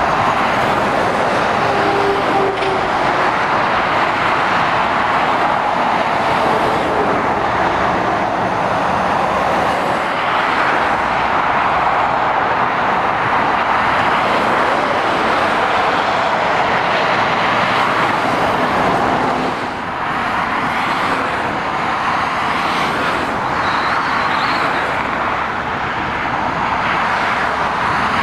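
Steady road-traffic noise from lorries and cars passing on a dual carriageway: tyre noise and engines blending into one continuous hiss, with a brief lull about two-thirds of the way through.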